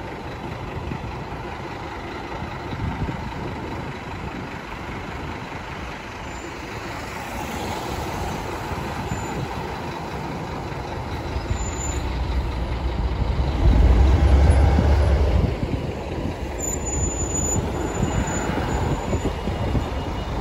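City buses' diesel engines running as they pull away and drive past, with a much louder low rumble about two-thirds of the way through as a bus passes close by.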